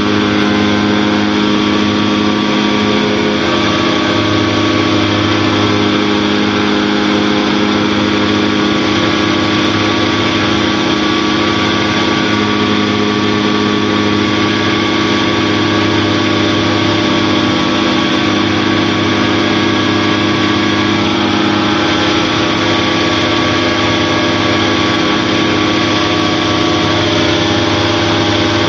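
Challenger II light-sport aircraft's engine and propeller running steadily at cruise power in flight.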